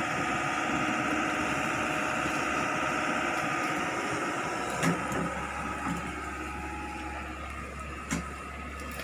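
Hitachi Zaxis 110 excavator's diesel engine running steadily as the machine is manoeuvred to level it, easing off toward the end. Two short sharp knocks come about five and eight seconds in.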